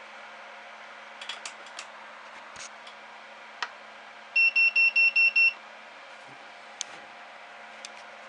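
A quick run of seven short electronic beeps from the 3D printer's buzzer, over a steady fan hum, with a few light clicks before and after.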